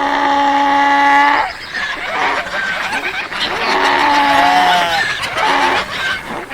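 Farm animals calling: a long, steady, fairly high-pitched call over the first second and a half, then a shorter call that falls in pitch about four seconds in and a brief one near the end.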